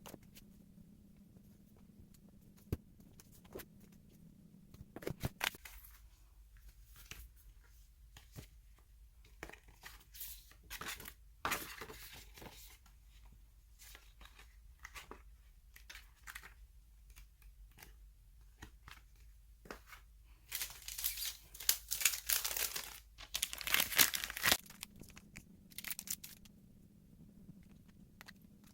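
Book packaging being torn open and crinkled by hand: short rips and rustles, then a longer, louder spell of tearing about two-thirds of the way through.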